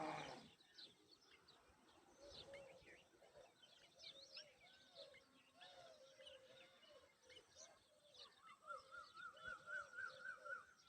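Faint birdsong: many short, high chirps and calls, with a louder call right at the start. Near the end comes a quick run of repeated rising-and-falling notes.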